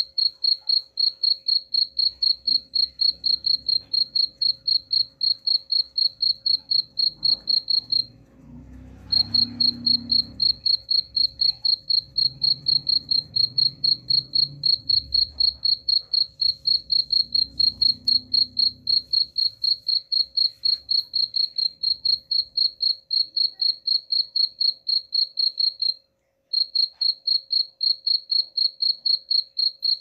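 Cricket chirping: a high, even pulse repeated about three times a second. It breaks off for about a second near a third of the way in, and briefly again near the end.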